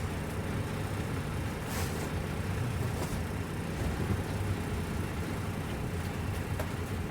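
Diesel engine of a ready-mix concrete lorry running steadily with a low hum, with a short hiss about two seconds in.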